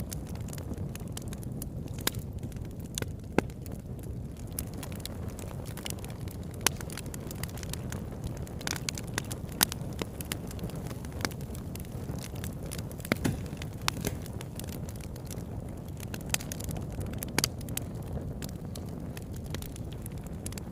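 Bonfire burning: a steady low rumble of flames with irregular sharp crackles and pops of burning wood.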